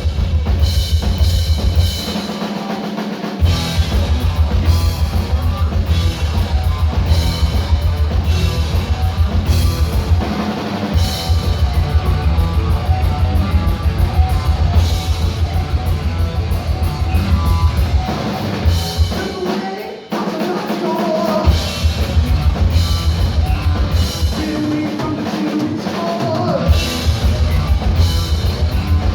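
Heavy metal band playing live: a drum kit pounds out a fast bass-drum beat under distorted electric guitar. The low drumming drops out briefly twice, about 2 seconds in and again near 20 seconds.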